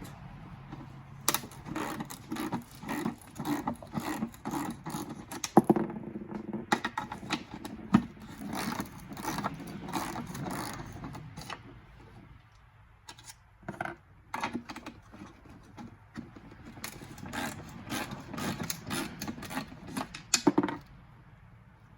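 Hard plastic tail light parts being handled and worked apart: irregular clicks, knocks and short rattles as the bulb-holder insert is taken out of the old lens housing. It goes quieter, with only a few clicks, about halfway through, then gets busy again toward the end.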